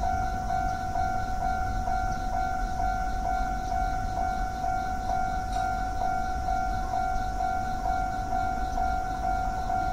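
Japanese level-crossing warning bell ringing its repeating electronic 'kan-kan' tone, re-struck a little more than twice a second, over a low rumble.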